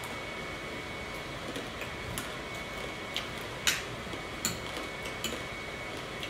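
Close-up chewing and crunching of crunchy food: a few sharp crackles, the loudest about three and a half seconds in, over a steady background hiss.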